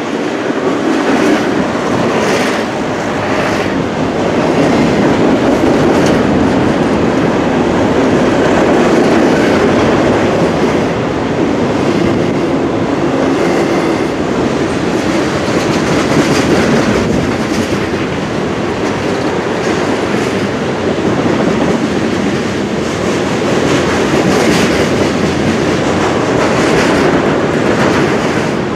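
A double-stack intermodal freight train's container cars rolling past: steady wheel-on-rail rumble with scattered clacks of the wheels over the track.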